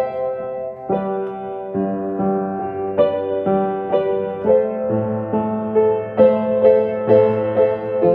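Upright piano being played: a slow, gentle piece of struck notes and chords that ring on, a new chord roughly every second.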